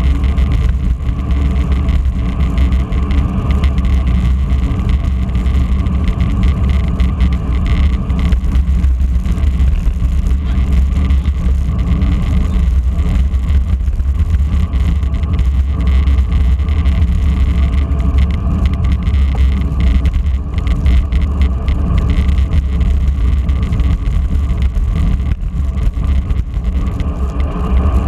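Wind rushing over the microphone of a camera riding on a road bicycle at speed, a steady deep rumble mixed with road and tyre noise from the moving bike.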